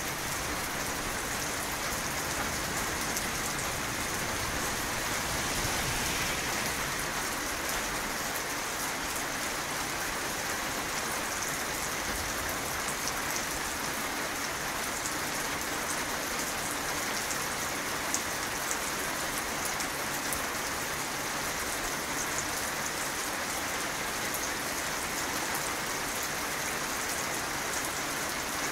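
Steady rain falling: an even hiss with the fine patter of scattered drops.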